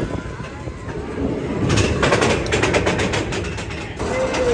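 Seven Dwarfs Mine Train roller coaster train rumbling along its track and climbing the lift hill. A run of rapid even clicks, about six a second, starts a little under two seconds in and stops abruptly near the end.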